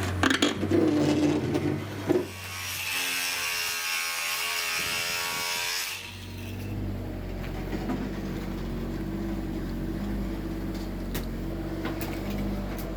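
Power tool at work: a few sharp knocks at first, then a whirring run of a few seconds, then a steady low motor hum.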